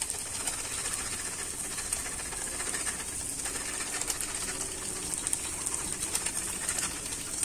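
Cauliflower and onions frying dry in a pan: a steady sizzle with small scattered crackles.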